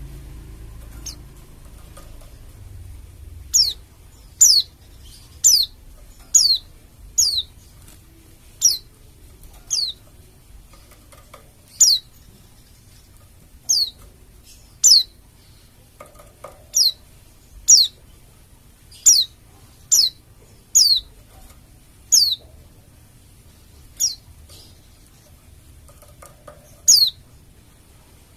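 A Bali dakun white-eye (pleci) calling: short, high, downward-slurred notes repeated about once a second, irregularly, starting a few seconds in.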